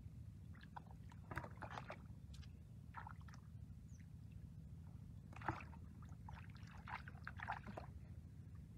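Hands splashing and squelching in shallow muddy water in several short bouts, with one sharp knock about five and a half seconds in, over a steady low rumble.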